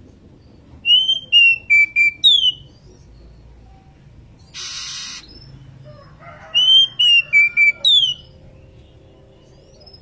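Female oriental magpie-robin (kacer) whistling the same call twice, about five seconds apart. Each call is a quick run of five clear notes: a rising-and-falling note, a dipping note, two level notes and a steeply falling one. A short hiss comes between the two calls. This is the call of a female in breeding condition calling to its mate.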